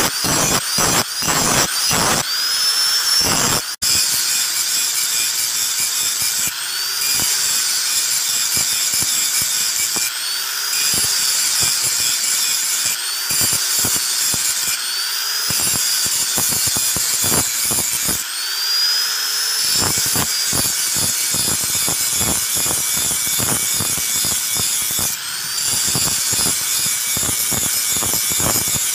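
Angle grinder grinding the edge of a steel knife blade made from an old bolo, the abrasive disc rasping against the metal. The motor whine sags and recovers in pitch again and again as the disc is pressed on and eased off, with a brief break about four seconds in.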